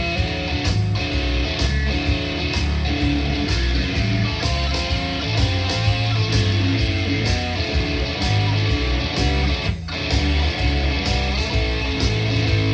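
Live band playing a rough, punk-style blues: strummed electric guitar over bass, with a steady beat, an instrumental passage between sung lines. The sound drops out briefly about ten seconds in.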